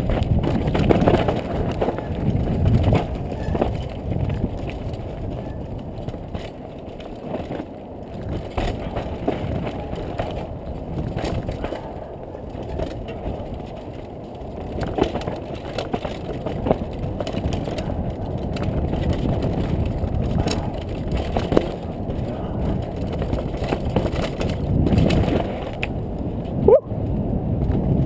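Mountain bike descending a rough dirt and rock trail: tyres rumbling and crunching over the ground, with a constant clatter of knocks and rattles from the bike over bumps, and one sharp knock near the end.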